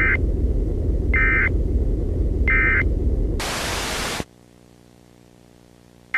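Three short EAS digital data bursts (SAME end-of-message tones), about 1.3 s apart, over a low rumbling noise. They are followed by a burst of static just under a second long that cuts off suddenly to a faint hum.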